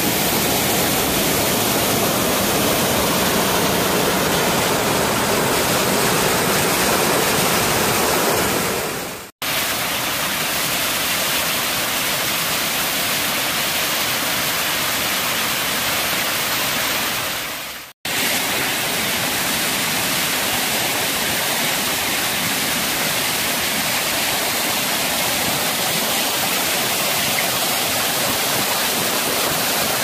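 Small garden waterfalls spilling over rock ledges into a pool: a steady rush of falling, splashing water. It drops out suddenly and briefly twice, about nine and eighteen seconds in, then resumes.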